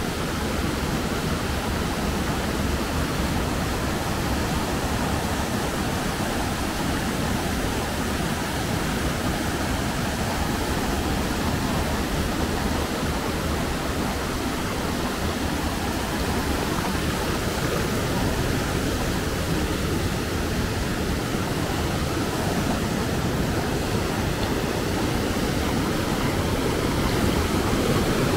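Fast mountain stream rushing over boulders in white-water rapids: a steady, unbroken rush of water.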